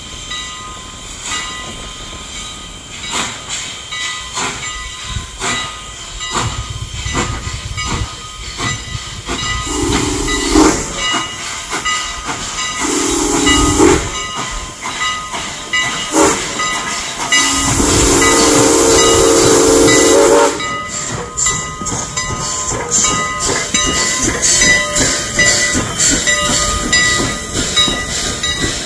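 Strasburg Rail Road steam locomotive No. 89, a 2-6-2, chuffs with a steady beat of exhaust as it approaches. It sounds its chime steam whistle in the grade-crossing pattern: a long blast, a second long blast, a short one, and a final long one held about three seconds. The locomotive and its passenger coaches then roll past with a rhythmic clatter of wheels on the rail.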